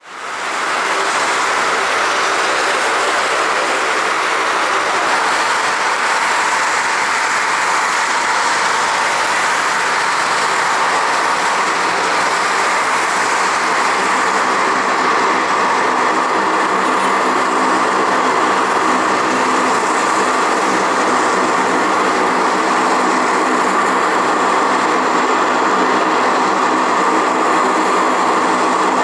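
Aircraft engines running steadily: a loud, even roar with several steady tones in it, holding level without coming nearer or going away.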